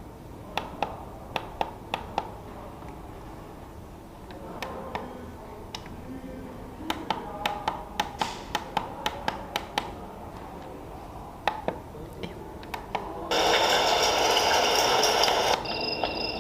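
Repeated sharp clicks of the alarm clock's buttons being pressed, in short runs. About thirteen seconds in, a louder steady running-water nature sound starts playing from the clock's small speaker, breaking off briefly near the end before resuming.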